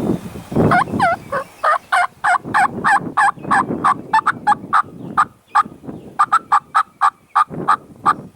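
A long series of turkey yelps, about three to four notes a second, each note breaking from high to low, in two runs with a short pause a little past the middle.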